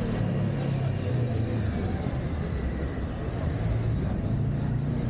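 City street traffic: motor vehicle engines running close by with a steady low hum.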